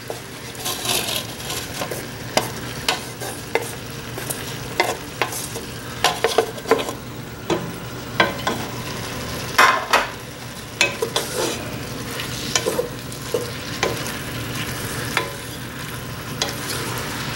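Cooked chicken pieces scraped off a plate with a wooden spoon into a pot of sautéing peppers and mushrooms, then stirred in: frequent irregular knocks and scrapes of wood against the pot and plate over steady sizzling.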